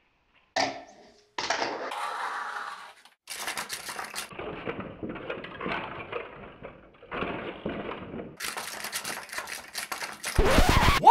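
A fingerboard clacking down on a miniature stair-and-rail set and rolling, followed by stretches of rough clattering and scraping. A short, loud rising sound comes near the end.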